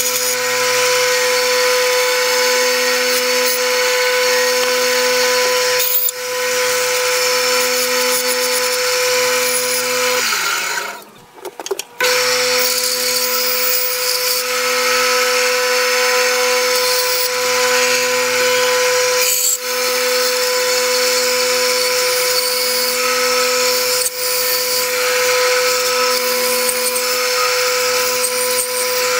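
Clarke Woodworker bandsaw running with a steady hum and whine, its blade cutting through small wooden blocks. About ten seconds in the machine sound sinks away for a moment, then comes back.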